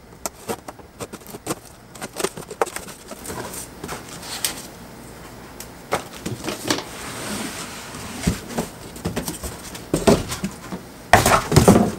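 A knife slitting packing tape on a cardboard box, then cardboard flaps being folded open with rustles and clicks. The box is then pulled up off its contents, and the cardboard and foam scrape and rustle loudest near the end.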